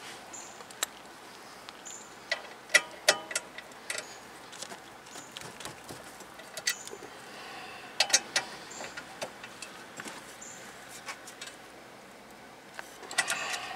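Sharp metallic clicks and clinks from small rear disc brake parts being handled and fitted at the caliper bracket, coming in clusters that are loudest about three seconds in and again about eight seconds in.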